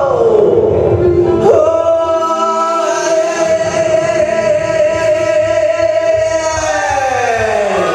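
Music with a male singing voice holding one long note. The note slides down in pitch soon after it starts, jumps back up a second later, holds steady, then slides down again near the end.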